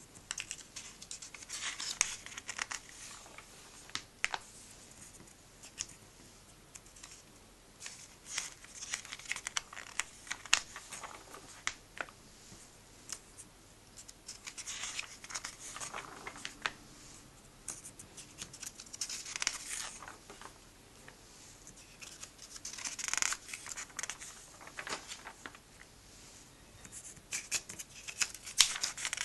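Pages of a glossy printed comic book being turned by hand: a papery rustle and slide every few seconds, with small taps and scrapes of the sheets between turns.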